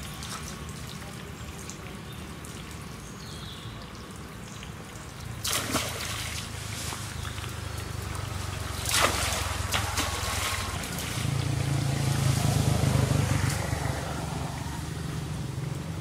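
Flood water sloshing and trickling, with two sharp splashes about five and a half and nine seconds in, over a low steady hum.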